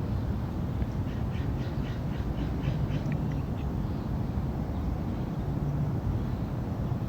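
Steady low rumble of a jet airliner climbing out overhead, with a bird giving a quick run of about eight short calls between about one and three seconds in.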